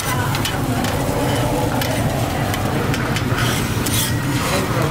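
Egg omelette patties sizzling on a steel flat-top griddle, with metal spatulas scraping and clicking against the griddle as they cut and lift the patties. A steady low hum runs underneath.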